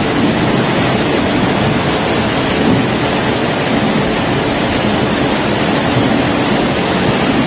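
Rotary drum potato washer running: a steady, unbroken rush of water and tumbling inside the mesh drum.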